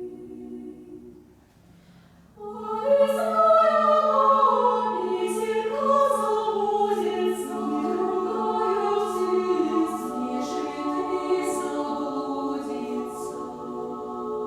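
Women's choir singing. A held chord dies away in the first second, then after a short pause the choir comes in loudly with sustained chords and moving lines, their 's' consonants hissing above the voices.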